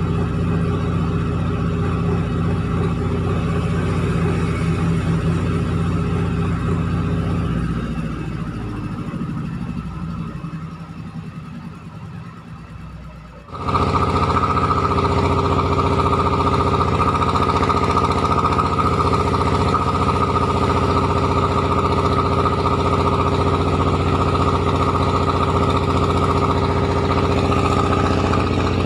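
Rice milling machine running with a steady mechanical drone. About eight seconds in it slows and fades away, then about halfway through it cuts back in suddenly, louder and steady, with a strong high whine over the drone.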